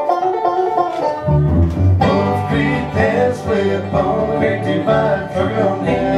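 Live bluegrass band, with five-string banjo, mandolin, acoustic guitar and upright bass, playing an instrumental passage. A lone picked melody line carries the opening second, then the upright bass and the full band come in with a steady beat.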